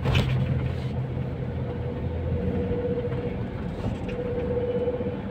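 Steady hum of a running motor vehicle with a wavering tone above it. The low rumble is heavier for the first couple of seconds and then eases.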